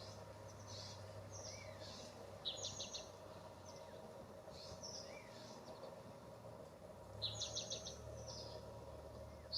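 Songbirds calling with short, high chirps again and again, with two louder quick runs of chirps, one about two and a half seconds in and one about seven seconds in. A steady low hum runs underneath.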